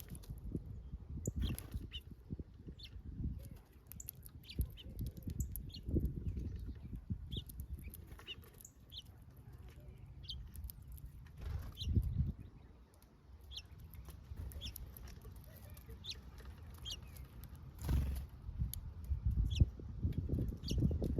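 Garden birds chirping: short, high chirps about one or two a second, over an uneven low rumble with a few louder swells.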